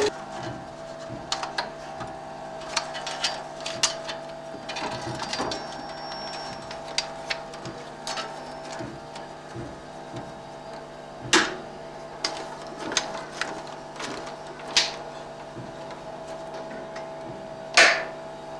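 Film projector machinery in a cinema projection room giving a steady hum, with irregular mechanical clicks and knocks over it; a louder knock comes a little past halfway and another near the end.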